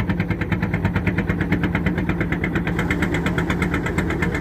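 Boat engine running steadily, with a fast, even pulsing beat.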